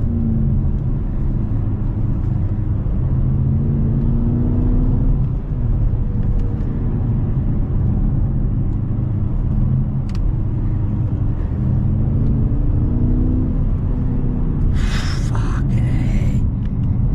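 BMW F12 M6's twin-turbo V8 through an Armytrix valvetronic exhaust, heard from inside the cabin while driving: a steady low drone whose pitch climbs several times as the car pulls. Two brief loud hissing bursts come near the end.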